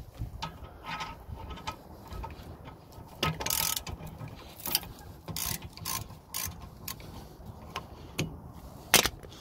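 Metal-on-metal clicks and clinks from a socket wrench working on a car's rear brake caliper mounting bracket bolts. The knocks come irregularly, some with a brief metallic ring, and the sharpest one comes near the end.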